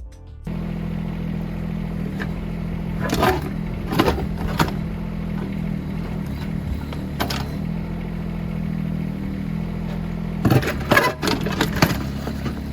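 Huayee SHY15 mini excavator's engine running steadily while the machine digs, with sharp clanks of the bucket and thumb against rocks and soil, a few together about three to five seconds in and a louder cluster about ten to twelve seconds in.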